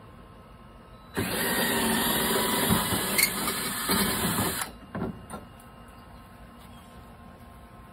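Power drill running for about three and a half seconds, drilling a mounting hole, then two light knocks.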